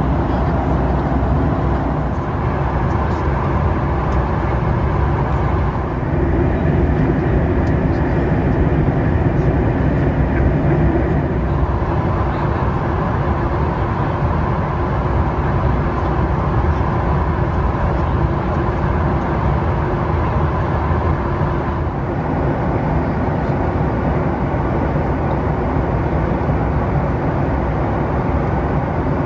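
Steady cabin noise inside a Boeing 737 MAX 8 in flight: a loud, even rumble of airflow and its CFM LEAP-1B engines, shifting slightly in tone a few times.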